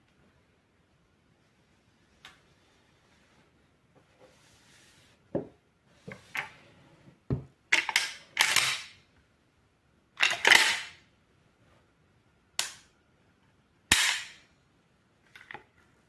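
Hatsan Escort Aimguard pump-action shotgun firing several shots, each a sharp report with a short noisy tail. Shorter, quieter clacks come a few seconds in and between the shots.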